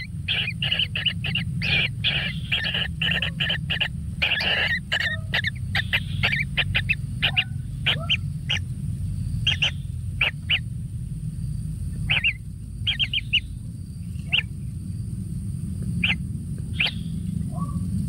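Kingfisher nestling calling in the nest burrow: rapid short chirps, packed closely in the first few seconds and then coming singly and more spaced out, over a steady low hum.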